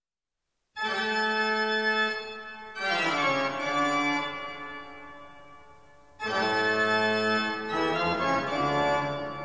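Music: slow, sustained organ-like keyboard chords, starting about a second in. Four chords in turn, each swelling in and slowly fading before the next.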